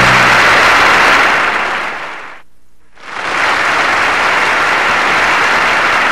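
Studio audience applauding as a song ends; the applause fades away about two seconds in, drops out for about half a second, then comes back and carries on.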